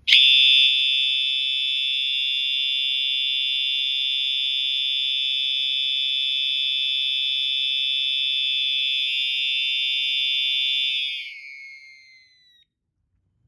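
Cerberus Pyrotronics MC-S17-F electronic horn strobe sounding its horn tone: a steady, high-pitched electronic tone for about eleven seconds. It then slides down in pitch and dies away.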